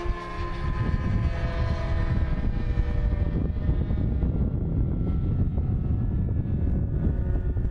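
Propeller engine of a small red aerobatic plane droning overhead, its pitch sliding slightly down and fading out about three seconds in as it moves away. Heavy wind rumble on the microphone runs underneath throughout.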